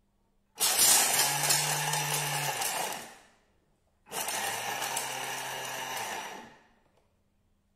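Thermomix food processor on turbo mode, its blade at 10,700 RPM grinding toasted black sesame seeds and rock sugar into a paste. Two pulses of about two and a half seconds each, a second apart, each winding down as the blade stops.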